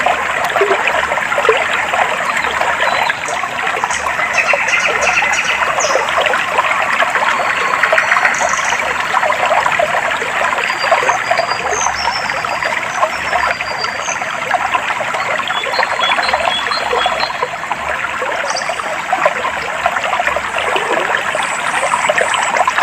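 Clear stream water trickling steadily, with short high bird chirps scattered throughout.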